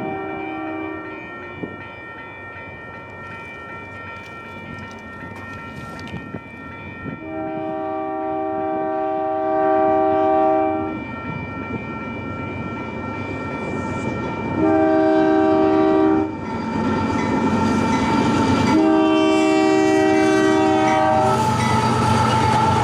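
Locomotive multi-chime air horn sounding the grade-crossing signal: the tail of one blast, then a long blast, a short one and a final long one, with a railroad crossing bell ringing underneath. The train's rumble and wheel clatter grow louder over the last few seconds as it reaches the crossing.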